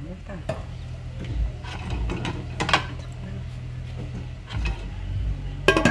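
Scattered light clicks and knocks of cookware being handled, a cluster of sharper knocks near the end, over a steady low hum.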